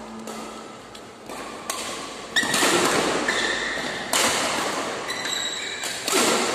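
Badminton rackets striking a shuttlecock in a doubles rally: several sharp hits a second or two apart, each ringing on in the echo of a large hall.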